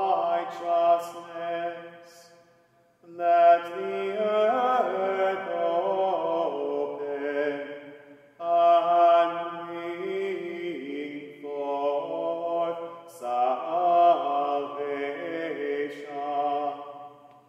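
A man singing Gregorian chant alone and unaccompanied: an English introit in long, slowly moving phrases, with short breaks for breath. The notes ring on in a resonant chapel.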